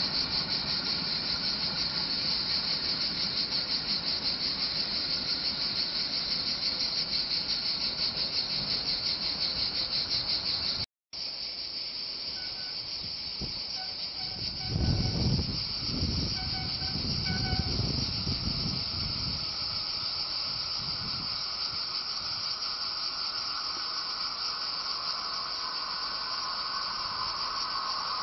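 Cicadas buzzing in a steady, high-pitched, fast-pulsing drone over the rolling noise of a freight train of sliding-wall box wagons passing on the rails. The sound cuts out for a moment about eleven seconds in; after that the cicadas carry on, with a low rumble for a few seconds in the middle and a steady hum building near the end as a distant train approaches.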